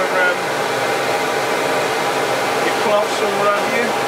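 CamVac CGV336-4 dust extractor running on both motors, a loud, steady rush of air drawn through its 2.5-inch posable hose at the lathe.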